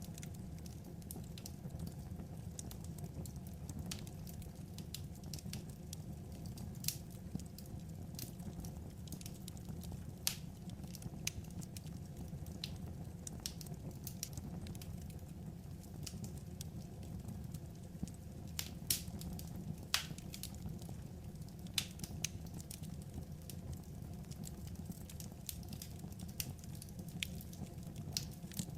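Wood fire crackling: scattered sharp pops and snaps at irregular intervals over a steady low rumble.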